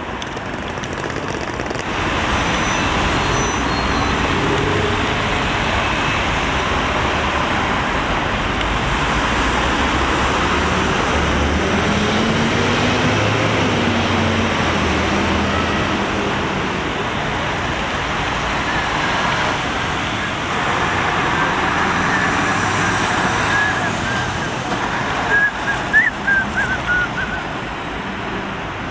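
CAF Urbos tram running, heard from inside: steady rolling and motor noise, with a whine that rises and then falls in pitch about halfway through. Brief high squeals near the end as the wheels take a curve.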